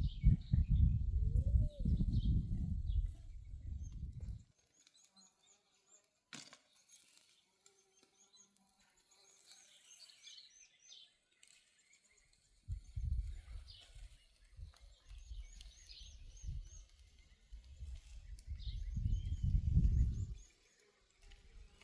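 Gusts of low rumbling wind noise on the microphone, dying away after about four seconds and returning after about twelve, with small birds chirping faintly and repeatedly in the quiet stretch between.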